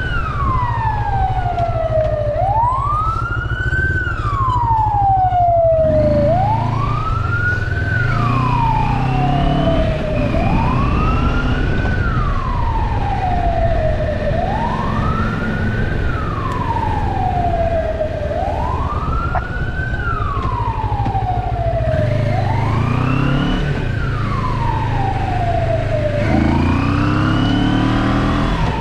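Electronic emergency siren wailing in a slow cycle: each wail rises for a second or so, then falls back over two to three seconds, and repeats about every four seconds. Underneath, a motorcycle engine runs and revs up a few times as the bike pulls away.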